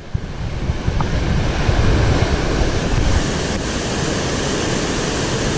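Churning whitewater rushing below a river dam: a loud, steady rush of water. Wind buffets the microphone, heaviest in the first half.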